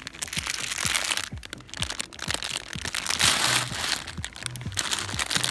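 Clear plastic wrappers on squishy toys crinkling and crackling as a hand rummages through them, in bursts, over background music with a steady beat.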